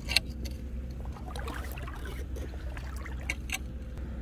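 Shallow seawater trickling among shoreline rocks, with a few sharp clicks or knocks: one just after the start and two close together near the end.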